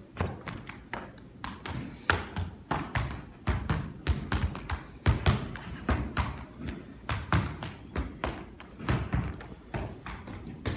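A child's sneakered feet running and hopping through mini hurdles on a hardwood floor: quick, irregular thumps and taps of footfalls, several a second.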